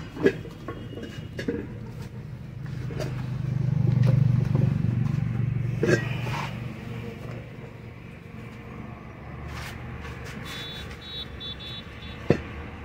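Road traffic: a motor vehicle's low rumble swells and passes about four seconds in, with several sharp knocks, the loudest near the end, and a brief run of high beeps a little before it.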